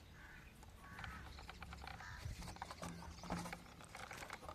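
Faint, irregular mechanical clicking and rattling of a 1:16 RC car's metal parts being handled and turned by hand.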